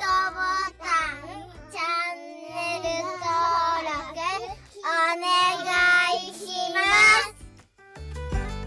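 A child's voice singing a short outro jingle over backing music with a low bass line, in high, gliding phrases that break off every second or so.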